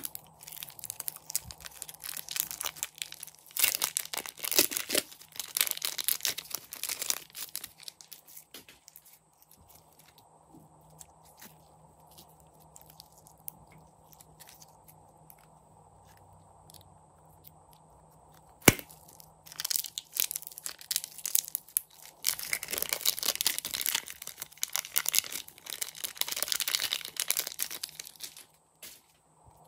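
Soft slime being squeezed and stretched by hand, making dense runs of small sticky crackles and pops. The crackling comes in two long stretches with a quiet gap of about ten seconds between them.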